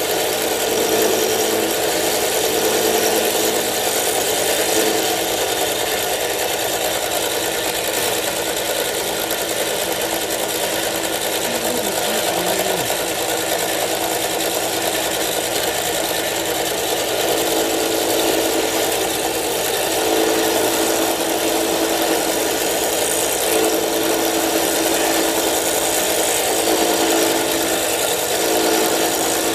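Manual milling machine running steadily, its end mill cutting the lock relief into a frame lock knife's frame.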